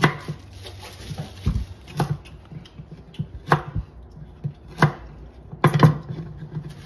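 Knife blade striking a wooden cutting board while chopping carrots into chunks: about six sharp knocks at uneven intervals, two of them close together near the end.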